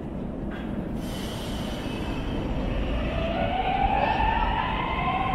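Metro train starting away from the platform: a low rumble that grows louder, with the traction motors' whine rising in pitch from about three seconds in.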